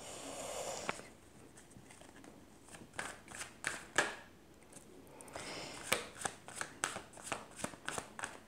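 A deck of oracle cards being handled: a short swish of cards sliding at the start, a few scattered snaps, then from about five seconds in a quick run of card clicks, about three a second, as cards are flicked through the deck.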